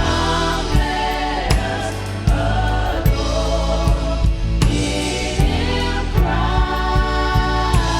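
Gospel worship song: a choir singing over a band, with a drum kit beating steadily at a little over one stroke a second.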